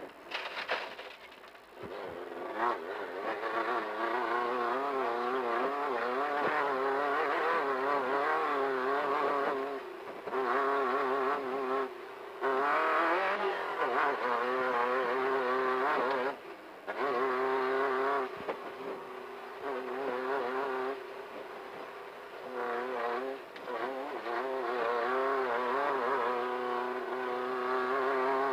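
Desert off-road race car's engine running hard at speed, its pitch wavering up and down continuously over rough ground. It is interrupted by several brief dips where the throttle is lifted or a gear is changed.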